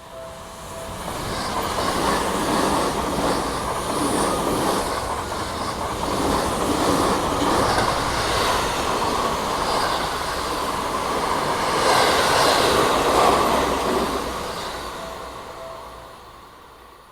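A Seibu Line electric train passing over a level crossing: the rumble of wheels on rails swells about a second in, with repeated clacks over the rail joints, stays loud with a second peak toward the end, then fades away. The crossing bell's ringing tones are heard briefly at the start and faintly again near the end.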